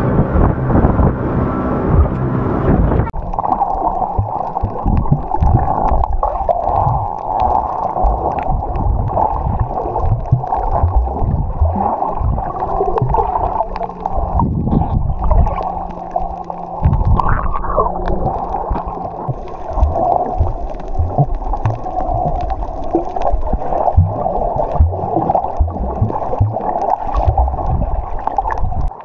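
Muffled gurgling and sloshing water with many dull knocks. A steady hum in the first three seconds stops abruptly.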